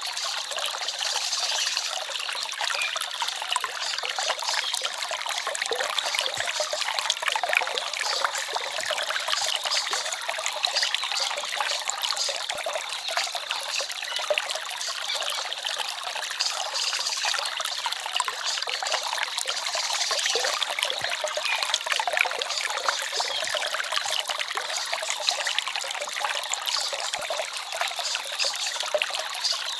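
Small forest stream trickling steadily: an even, light water sound with little low rumble.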